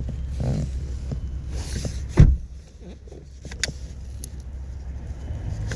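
Knocks, clicks and rustling from hands working around a car seat, with one heavy thump about two seconds in, over a low steady hum.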